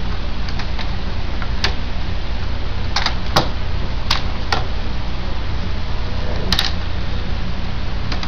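Scattered sharp clicks and knocks of a Dell Inspiron 1545 laptop's plastic case and cable plugs being handled as it is unplugged and closed, over a steady low hum.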